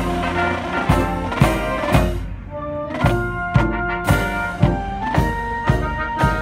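Massed marching band playing a tune on brass and drums, with a steady drum beat about twice a second.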